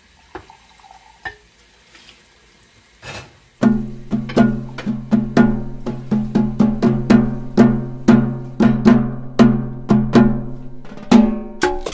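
A few faint clicks, then about three and a half seconds in, background music starts: an upbeat tune of quick, evenly repeated wood-block-like percussive notes over a steady low tone.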